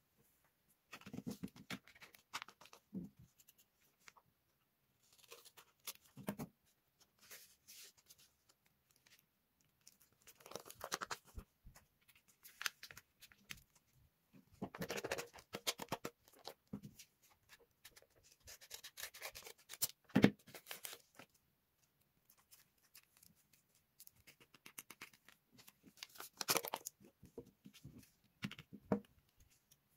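Tape-covered paper cards being handled, picked up and slid over a cloth surface: intermittent rustling and crinkling of the shiny paper in short bursts, with one sharp tap about two-thirds of the way through.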